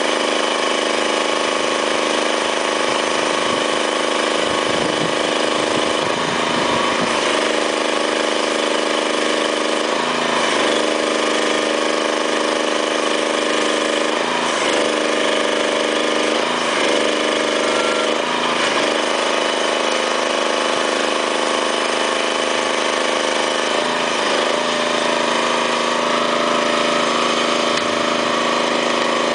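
Small engine of a hydraulic well-pulling rig running steadily, its pitch dipping briefly several times and settling a little lower near the end.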